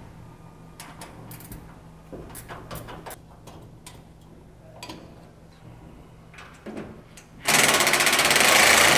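Handling of the lift's sheet-metal front cover: scattered clicks and knocks. About three quarters of the way in comes a loud, fast rasping rattle lasting about a second and a half.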